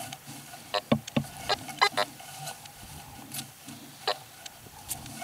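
Fisher F75 metal detector giving short, irregular beeps and chirps as its search coil is swept over grass, with a couple of knocks about a second in; most of the beeps bunch up between one and two seconds in, with one more near the end.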